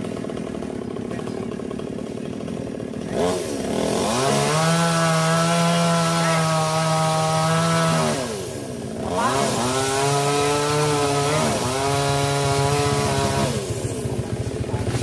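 Two-stroke chainsaw idling, then revved to full speed twice, each time for about four seconds, while cutting into a sonokeling (Indian rosewood) branch. The pitch drops back toward idle between the two runs.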